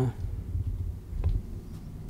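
Low, steady room rumble with a single faint click a little past a second in, after a spoken word trails off at the very start.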